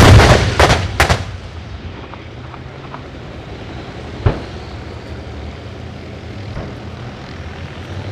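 Heavy live-fire gunfire on a range: a loud blast with two more following within the first second, then a single sharp report about four seconds in, over the steady low drone of military vehicle engines.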